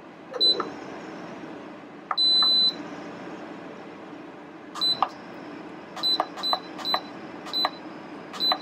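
Instant Pot Duo control panel beeping as its buttons are pressed: one short beep near the start, a longer beep about two seconds in, then a quick run of short beeps from about five seconds in, each with a light click of the key, as the pressure-cook time is set.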